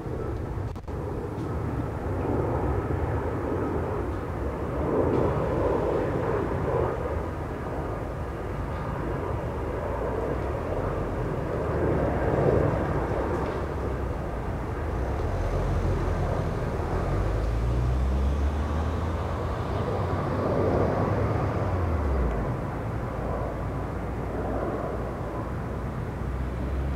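Twin-engine jet airliner on landing approach: a steady rumble of jet engine noise that swells and eases several times, with a faint steady whine.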